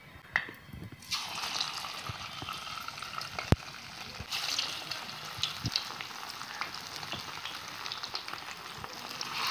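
Besan-coated marinated fish pieces sizzling as they go one by one into hot oil in a kadai. The sizzle starts suddenly about a second in and swells again a little after four seconds as another piece goes in, with a couple of sharp clicks.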